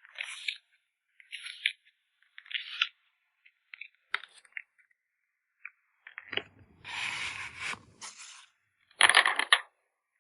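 Plastic photocard sleeves and packaging handled up close: a run of short crinkles and light taps, then a longer rustle from about six to eight seconds in and a louder crinkle near the end.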